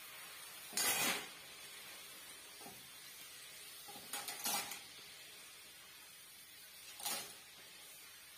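Cooked clams in their shells clattering into a stainless-steel frying pan as they are scraped out of another pan with a wooden spatula, in three short bursts, about a second in, around four seconds in and near the end. A faint steady hiss runs underneath.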